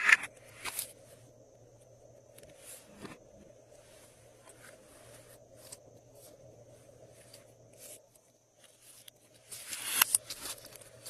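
Glossy slime being handled and mixed: sticky clicks and crackles. There is a loud burst right at the start, scattered single clicks through the middle, and a dense run of crackling about ten seconds in.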